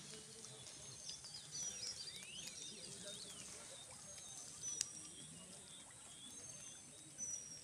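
Several wild birds calling: short high thin whistles and quick chirping trills over a faint background hum, with one sharp click just under five seconds in.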